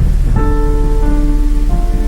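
Heavy rain with rumbling thunder, under soft music of sustained notes that shift to new notes every half second to a second.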